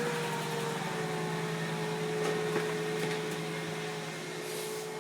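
Mercedes S500's pneumatic comfort-system (PSE) pump running with a steady hum, trying to raise the rear headrests; it keeps running because of an air leak in the rear headrest system.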